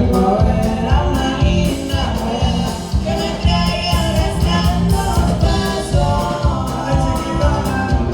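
A norteño band playing live: a pitched melody over heavy bass and a steady drum beat.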